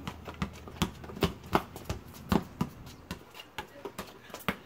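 A basketball bouncing on street asphalt, mixed with the slap and scuff of sneakers, as a run of sharp, irregular slaps several a second.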